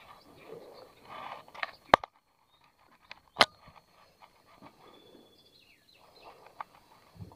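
Two sharp clicks about a second and a half apart, the first the loudest, over faint scattered rustling and a faint steady high-pitched hum.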